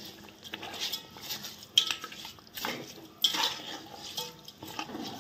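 Metal spoon scraping and clinking against a cooking pot as a wet mixture of raw rice, meat and vegetables is stirred, in irregular strokes about once a second.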